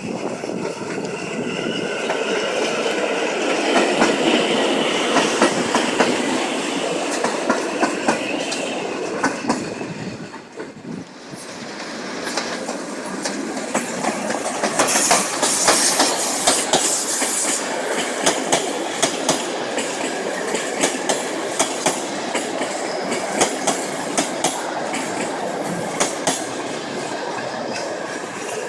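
Passenger train running through a railway station, its wheels clacking steadily over rail joints and points. A whine carries through the first ten seconds or so, and a brief high wheel squeal comes about halfway through.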